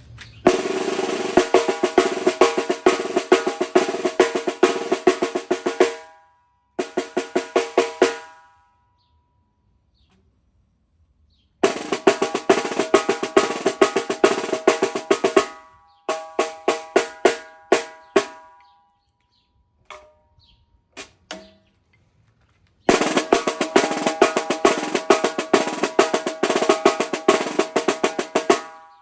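DW Collector's Series snare drum played in fast strokes and rolls, in several passages with short pauses between, a few single hits in the middle, the drum ringing after the strokes.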